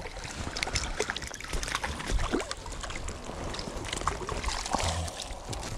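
Shallow stream water sloshing and splashing, with many small sharp splashes, as a hooked trout is brought in to the net.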